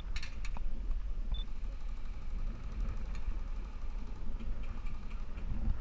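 Low, gusting rumble of wind on the microphone, with a few sharp clicks about a quarter second in.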